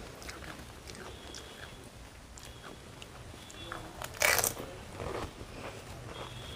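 Small crackles as a crisp fuchka (pani puri) shell is handled and filled, then one loud crunch about four seconds in as the whole shell is bitten, followed by close-up chewing.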